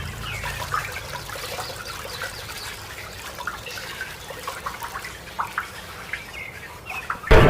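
Running water splashing steadily, with scattered short bird chirps over it.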